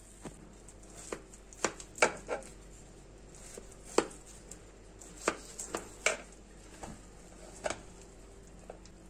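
A white spatula cutting into a cheese-topped cauliflower bake and knocking and scraping against the glass baking dish: a dozen or so sharp clicks and taps, loudest about two and four seconds in.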